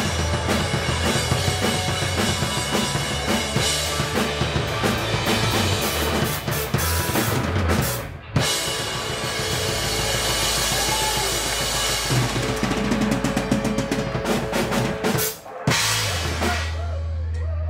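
Live rock band playing without vocals: drum kit, electric guitar and bass guitar. The music cuts out briefly about eight seconds in and again near the end, after which the drums stop and held guitar and bass notes ring on.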